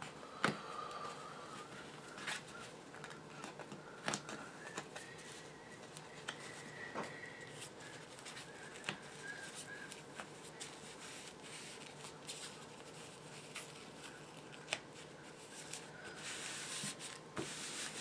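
Sheets of cardstock and a dark red sheet being handled and slid over a cloth-covered bench: soft paper rustling with scattered light taps and clicks.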